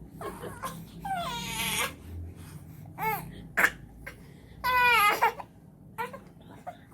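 Twin baby boys crying in short, high-pitched wailing bouts, with one sharp sudden sound about halfway through.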